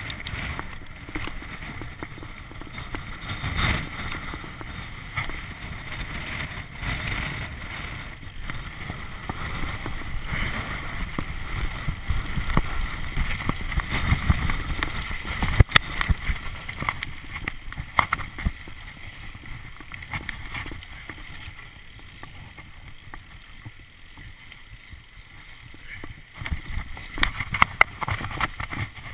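Mountain bike descending a dirt singletrack: wind buffeting the camera microphone, tyres on the trail and the bike rattling over bumps. There is a sharp knock about halfway through and a cluster of knocks near the end as the trail gets rougher.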